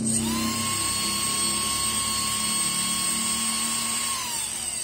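12-volt brushed DC motor from a cordless drill, spinning unloaded with a steady high whine, here running in reverse. About four seconds in, the power is cut and the whine falls in pitch as it winds down.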